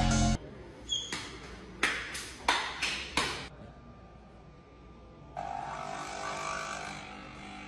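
Capsule espresso machine: a few sharp clicks and knocks as it is handled, then from about five seconds in its pump running steadily as it brews.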